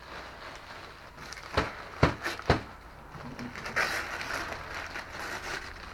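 Three sharp knocks or taps about half a second apart, then the rustle of a gift being unwrapped.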